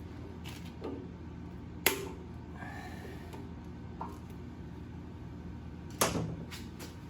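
Two sharp knocks with a short ring, about two seconds and six seconds in, and a couple of fainter clicks, over a steady low hum.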